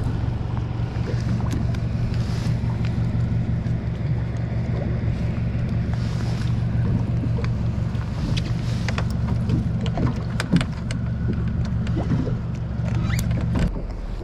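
Steady low hum of a boat engine running, with scattered light clicks and knocks of fishing line and gear being handled on the boat. The hum cuts off suddenly near the end.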